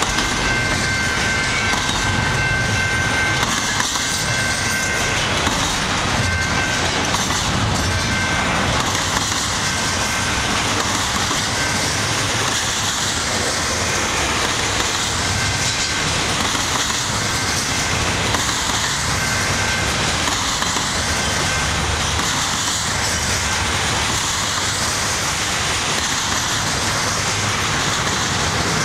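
Double-stack intermodal freight cars rolling past, their steel wheels rumbling and clattering steadily on the rails.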